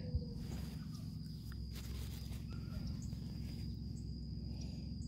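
Steady low background hum with a thin, steady high-pitched whine over it, and a few soft rustles of clothing being handled.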